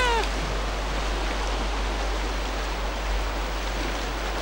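A lava gull gives one short cry right at the start, over a steady wash of shoreline noise.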